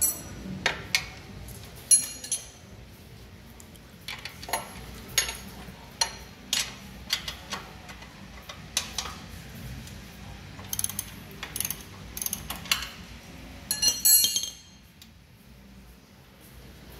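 Irregular sharp metal clicks and clinks of a wrench and a threaded bushing press tool being worked on a steel chassis frame, with a short run of rattling clinks about fourteen seconds in, after which it goes quieter.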